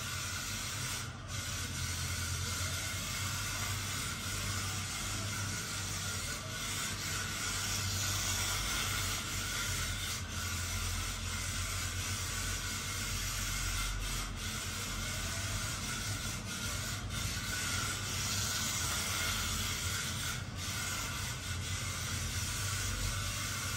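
A 1/28-scale RC drift car running on a printed track mat: a steady hissing rub of its tyres sliding, with a low hum underneath and a few faint ticks.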